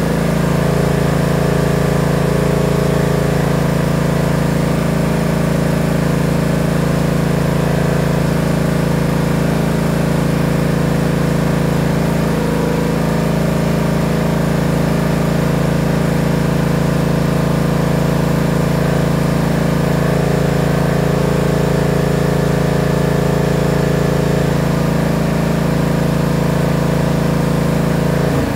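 Tractor engine running steadily, a loud, even drone with no change in speed.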